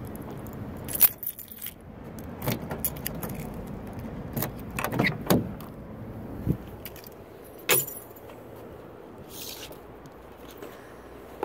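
Keys jangling, with a string of sharp clicks and knocks as a car door is opened and someone gets in. The loudest click comes about a second in, and another sharp one a little before the end.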